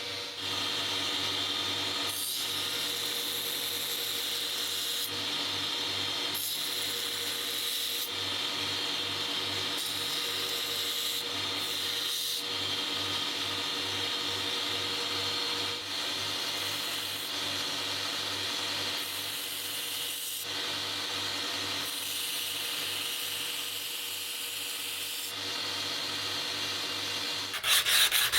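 Electric power tool running steadily with a motor hum and an abrasive hiss, working the steel of an old saw blade. The sound breaks off briefly at several points where the footage is cut.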